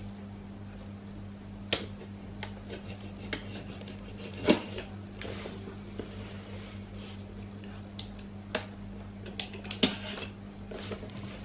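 A folding knife cutting and scraping at the seals of a clear plastic camera box: scattered sharp clicks and scratches at irregular times, with a few louder snaps a little before halfway and near the end, over a steady low hum.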